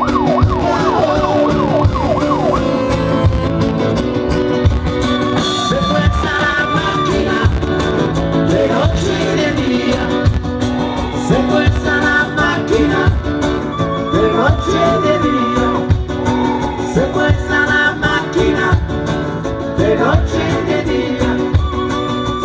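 Live band playing an instrumental passage with a steady beat, full of lead lines that slide up and down in pitch.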